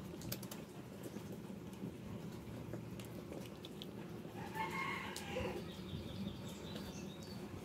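A stray cat chewing dry kibble off a tiled floor, with a few small sharp clicks. About halfway through there is one short animal call.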